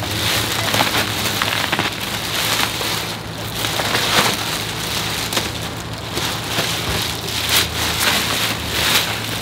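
Thin plastic bagging and expandable-foam packing being pulled apart and handled: continuous dense crinkling and rustling of plastic sheeting, full of small crackles.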